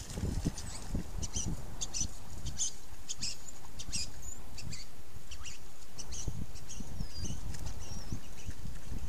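Many short, high chirps and twitters, a few of them gliding in pitch, over low splashing and rustling from African wild dogs wading through a shallow flooded pan.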